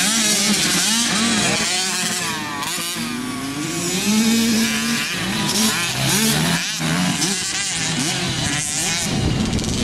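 Dirt bike engines out on a motocross track, several at once, revving up and down in pitch as riders accelerate and shift through the gears.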